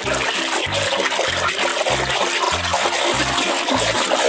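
Soapy water sloshing and splashing in a plastic basin as a hand scrubs a toy under the suds. A background-music bass line plays underneath.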